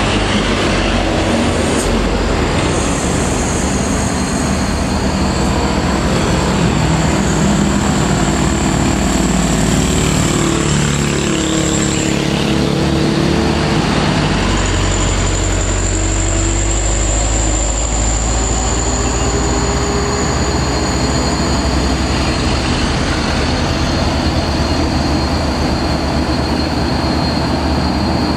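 Heavy diesel truck engines labouring up a steep grade, loudest a Hino 500 dump truck crawling uphill. The engine note shifts about halfway through, and a thin high whine comes and goes above it.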